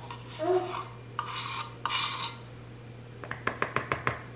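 A plastic measuring spoon scraped twice across the rim of a baking powder can to level it, then a quick run of light taps as the spoon is knocked against a plastic mixing bowl to empty it.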